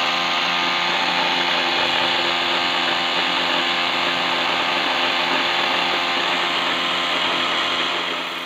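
Steady rushing hiss and splash of a 3D-printed venturi aerator's water jet spraying air-laden water across a fish pond's surface, with a steady hum underneath. It fades near the end.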